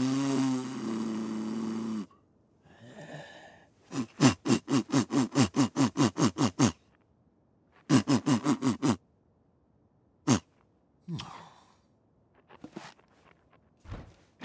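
A cartoon man's wordless vocal sounds: a buzzing blow through pursed lips for about two seconds, then two runs of quick, short grunts, each dropping in pitch, about four a second, with a click and a few faint taps near the end.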